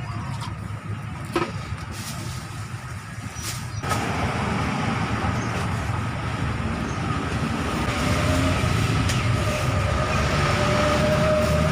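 A steady engine-like rumble with a faint whine, growing louder about four seconds in, with a few sharp knocks before that.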